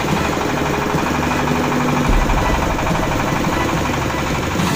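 Floating feed-pellet extruder running steadily: a loud machine drone with a fast, even chatter.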